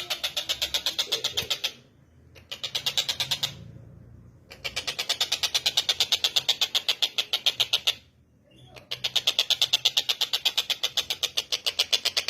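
Tengkek buto kingfisher calling: a rapid, rattling series of sharp, evenly repeated high notes in long runs, broken by short pauses about two, four and eight seconds in.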